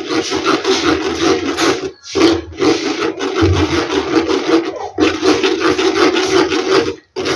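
A spoon scraping and rubbing round a fine steel-mesh strainer, working wet ground mustard paste through the mesh. The rasping comes in three long stretches, with brief pauses about two and five seconds in.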